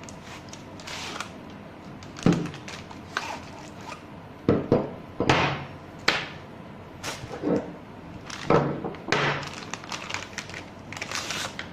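Irregular clunks, knocks and scraping as an electric door lock is unpacked and handled.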